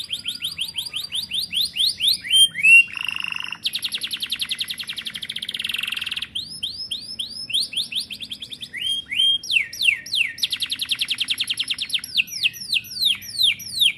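Domestic canary singing a long, continuous song: runs of quick downward-sweeping notes, several a second, broken by a fast buzzing roll about four seconds in and another about ten seconds in.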